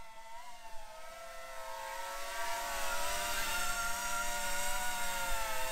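FPV quadcopter's brushless motors and propellers whining, several high tones wavering up and down together as the throttle changes, growing louder over the first few seconds.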